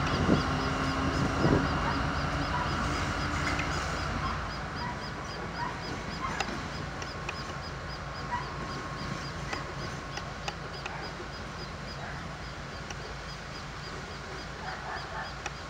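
CSR SDD7 diesel-electric locomotive running as it hauls passenger coaches away, with a couple of clanks in the first two seconds. Its engine sound fades after about four seconds into a quieter rumble with scattered ticks. A high chirp repeats about three times a second throughout.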